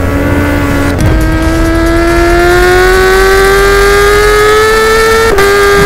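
Honda CBR1000RR SC77 inline-four sportbike running through an Akrapovic titanium Evolution exhaust, accelerating hard: the engine note climbs steadily in pitch for about four seconds. It breaks briefly about a second in, and again near the end, where a gear change drops the pitch.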